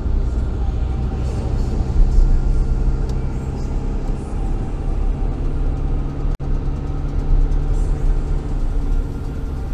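Car driving on a wet road, heard from inside the cabin: a steady low drone of engine and tyre noise, with a very brief dropout a little after halfway.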